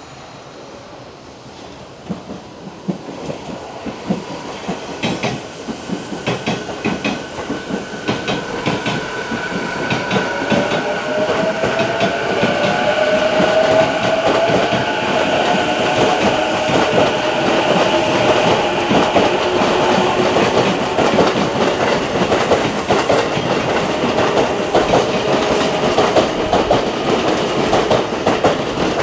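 Electric train running through, getting louder over the first half, with the whine of its VVVF inverter traction motors. One tone rises slightly in pitch, and the wheels clack over rail joints.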